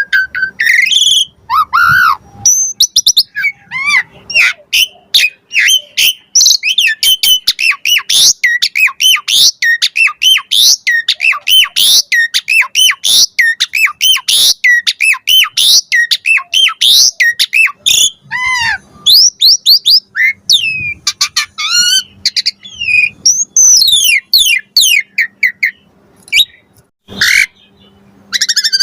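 Asian pied starling (jalak suren) singing a long, fast song of varied whistles, chirps and harsher squawking notes, with a brief pause near the end.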